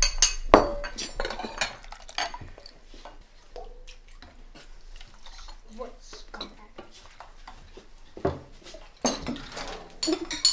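Ceramic bowls clinking as they are lifted off a stack, then a spoon clinking against bowls and an enamel pot as food is served. The clatter is densest in the first two seconds, with scattered clinks through the middle and another flurry near the end.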